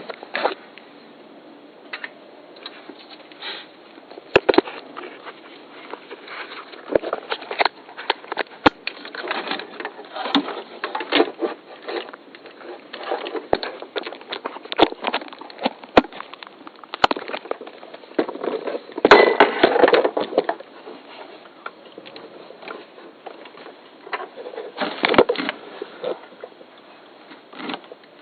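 Camera handling noise: irregular rustling, scraping and sharp knocks as the camera is moved and repositioned, with a longer, louder scrape about two-thirds through and another cluster near the end.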